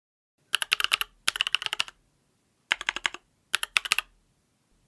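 Typing on an IDOBAO ID80 mechanical keyboard fitted with Gateron Milky Yellow linear switches, lubed with Krytox 205g0 and filmed. It comes as rapid keystrokes in four short runs, with brief pauses between them.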